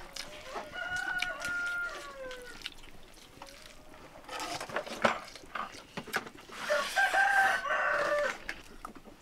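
A rooster crowing twice, a long drawn-out crow about a second in and another near the seven-second mark, with a few sharp knocks in between.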